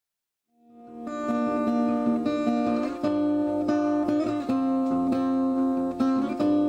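Acoustic guitar music, fading in about half a second in and then playing on at a steady level.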